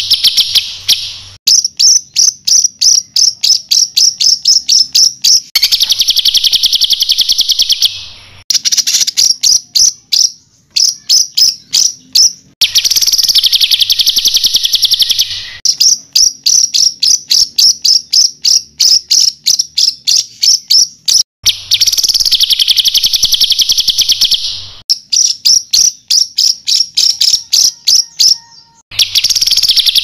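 Songbird song for training competition birds: dense high trills of two to three seconds, four of them, alternating with fast runs of sharp repeated notes, several a second.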